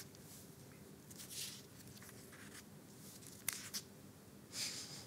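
Faint rustling of thin Bible pages being turned: a few short swishes and a sharp click about three and a half seconds in, over low room tone.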